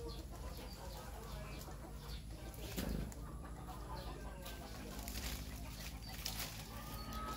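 Dry, brown banana leaves rustling and crackling as they are pulled and torn from the plant, in a few bursts.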